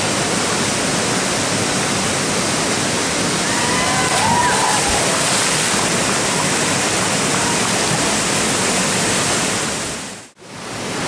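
Steady rush of fast white water over river rapids, dipping out briefly near the end.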